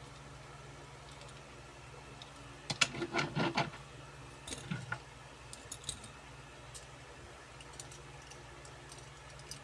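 Diecast toy cars clicking and clattering as they are handled and set down among other cars: a quick run of clinks about three seconds in, then a few lighter scattered clicks.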